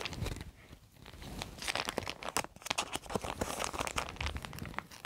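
Plastic crinkling and small clicks as photocards and their plastic sleeves are handled and slid into a binder. The crackling is irregular and gets busier after the first second or so.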